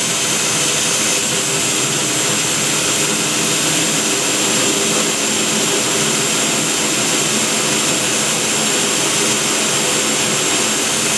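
Power drill driving a 2 1/8-inch hole saw, cutting steadily through a door to enlarge the existing lock hole, with a high steady whine over the cutting noise.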